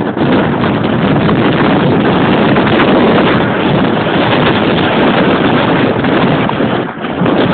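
Strong wind blowing across the microphone: a loud, steady rush of noise with a brief lull near the end.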